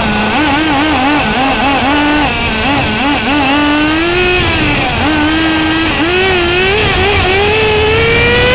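Nitro (glow) engine of a Bycmo RC rally car, heard from a camera mounted on the car, revving up and down through the corners with quick throttle blips. Its pitch wavers rapidly for the first couple of seconds, then rises in a long steady climb near the end.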